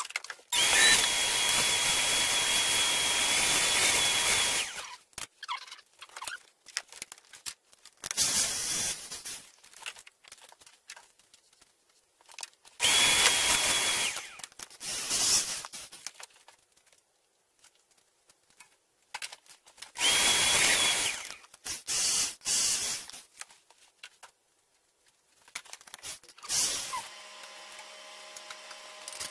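Large corded drill driving a Time-Sert drill bit into a stripped head-bolt hole in a Toyota 2.4 L aluminum engine block, run in about seven bursts of one to four seconds with pauses between as the bit is pulled out to clear aluminum shavings. A faint steady hum follows near the end.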